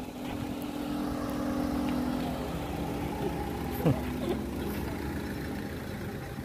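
A motor vehicle's engine running steadily, a low even hum. About four seconds in there is a brief, sharp rising sound.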